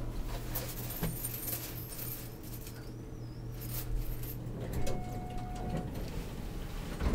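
Scattered rustling and clicking of handling close to the microphone over a low steady hum, with a steady tone lasting about a second a little past the middle.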